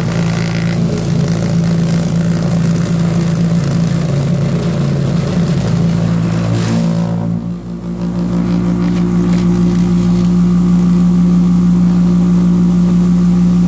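Vibratory tumbler running with a loud, steady hum and rattle, its bowl holding a gun receiver in a caustic hydroxide solution; the loosened lid adds a lot of the noise. About halfway through, the rattle briefly drops and the hum then runs steadier.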